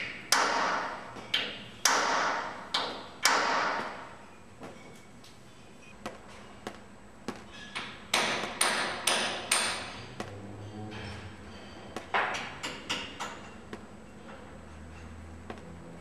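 Hammer blows on metal in irregular runs of sharp strikes, each ringing on briefly, with a quieter lull of light ticks in the middle.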